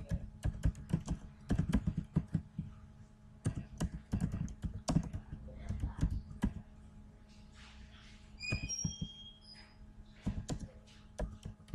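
Typing on a computer keyboard: irregular runs of sharp key clicks over a low steady hum, with a few short high tones about eight and a half seconds in.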